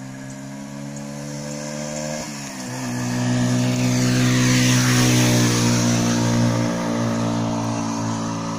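Single-cylinder 139FMB 50cc four-stroke moped engine running at high revs. The pitch drops suddenly about two seconds in, like a gear change, then the sound swells to a peak in the middle and fades as the moped passes by.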